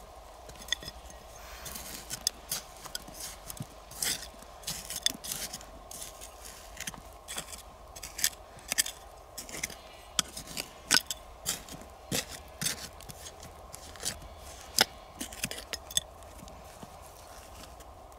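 A small metal hand digging tool scraping and scooping through gritty, stony soil, with irregular sharp scrapes and clicks as it catches on grit and pebbles.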